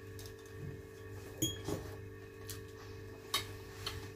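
Quiet eating sounds at a table: chewing and mouth noises with a few short sharp clicks, the loudest about a second and a half in, over a steady low hum.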